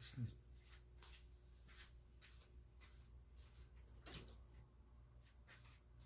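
Near silence: room tone with a low hum, scattered faint clicks and a soft thump about a quarter second in.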